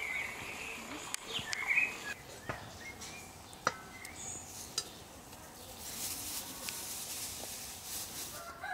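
Chickens clucking and calling, with a few short rising calls in the first couple of seconds and scattered sharp clicks.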